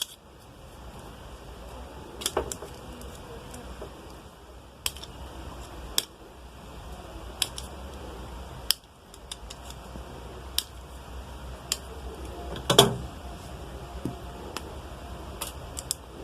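Wire insulation being stripped off the three conductors of a power cord by hand tool: scattered sharp clicks and snips every second or two, the loudest about three-quarters of the way through.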